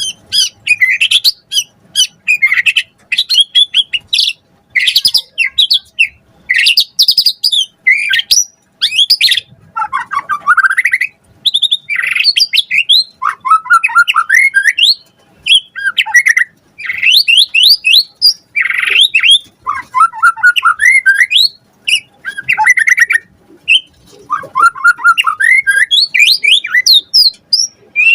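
White-rumped shama (murai batu) singing hard: a fast, unbroken run of varied phrases of clear whistles, quick sweeping notes, rapid trills and harsh squawk-like notes, each phrase a second or two long with short pauses between them.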